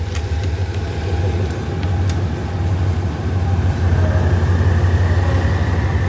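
GEK-class diesel-electric locomotive running with a steady low drone that grows louder as the train starts to move off, with a faint whine slowly rising in pitch. A couple of sharp clicks in the first two seconds.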